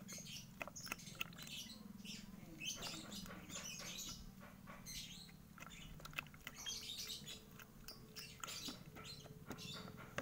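Birds chirping in short, irregular calls, over a faint steady hum.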